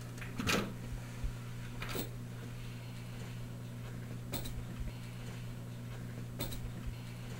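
Steady low hum of room tone, with a sharp click or tap about every two seconds.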